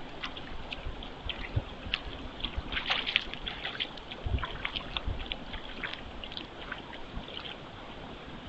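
White-tailed deer wading into shallow pond water, its hooves splashing and sloshing in an irregular patter of small splashes, busiest about three seconds in, with a few low thumps from its steps.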